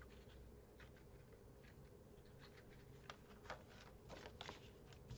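Faint rustling and a few light ticks of paper and black card stock being handled and slid together, picking up in the second half.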